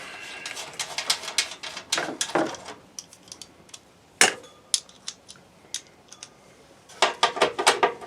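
Hand tightening of screws into an RV furnace's sheet-metal firebox: quick runs of small metallic clicks and clinks from the hand tool and screws, with one sharper knock a little after four seconds.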